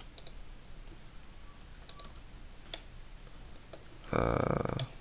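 Scattered single clicks of a computer keyboard and mouse, then a brief loud rattle of rapid clicks lasting under a second about four seconds in.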